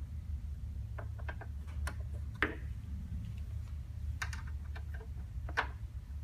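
Hand screwdriver loosening screws on a battery box's fan cover: irregular light clicks and ticks of the tool against the screw heads, two of them sharper, over a steady low hum.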